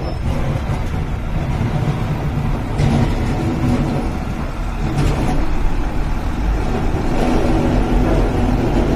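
Engine of a sanitation truck fitted with a front snowplow, running as the truck moves slowly along a snowy street. It is a steady low rumble that gets a little louder about three seconds in.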